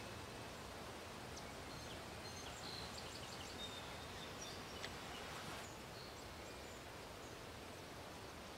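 Faint outdoor ambience: a steady background hiss with short, high bird chirps scattered through the first half or so, and a single soft click about five seconds in.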